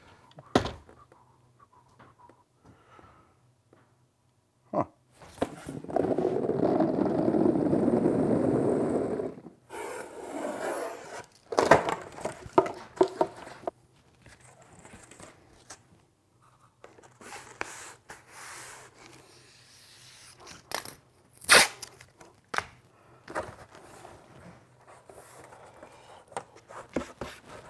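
Foam core board and masking tape being worked on a workbench: a long tearing rasp of tape pulled off the roll about five seconds in, then scraping, rustling and a few sharp knocks of the board against the bench.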